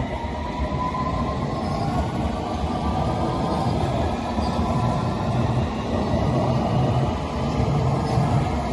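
S7 Stock London Underground train pulling away, its traction motors whining in a steadily rising pitch over the rumble of the wheels on the track as it gathers speed.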